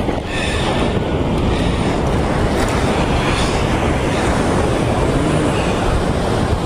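Wind buffeting the microphone at the sea's edge, a steady loud rumble over the wash of small waves on the rocks.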